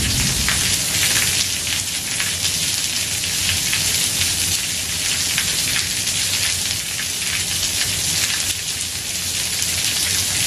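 Heavy rain falling steadily on a house roof: a dense, even hiss with a thick patter of separate drop ticks.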